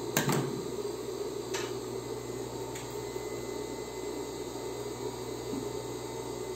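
Steady hum of an industrial coverstitch sewing machine's motor running between seams. Just after the start there is a sharp snip of fabric shears trimming the excess, then a couple of faint clicks.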